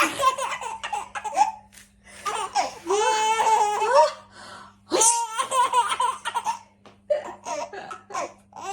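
Baby laughing in repeated bouts of belly laughter, set off by the sound of sneezing, with short pauses between the bouts.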